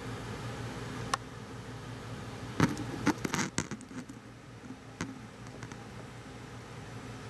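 Steady low electrical hum with a faint hiss, broken by handling clicks and knocks: one about a second in, a quick cluster around the middle, and one more near the end.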